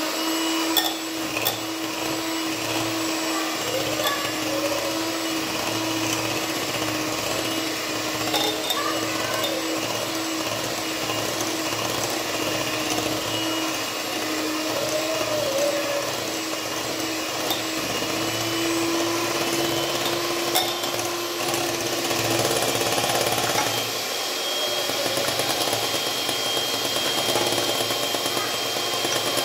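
Electric hand mixer running steadily, its beaters whipping cream in a bowl, with a few sharp clicks along the way. A little over 20 seconds in, the motor's tone changes.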